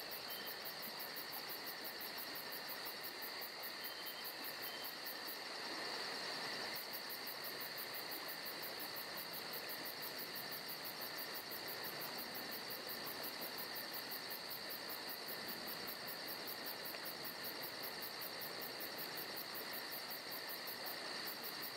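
Steady chorus of insects, several high chirring tones at once, with a fast, even pulsing in the highest one.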